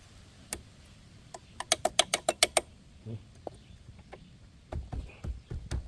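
Hand tools working on a rusted-on brake caliper: a quick run of about eight sharp metallic clicks, then a few dull knocks near the end.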